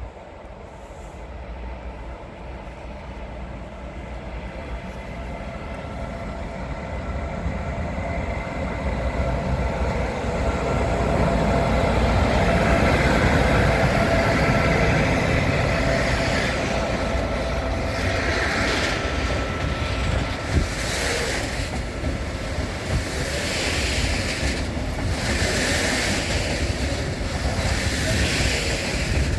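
Electric-hauled freight train of Eas open wagons approaching and passing close by, growing steadily louder over the first dozen seconds with a faint steady whine. After that comes the rhythmic clatter of the wagons' wheels over the rail joints every second or two.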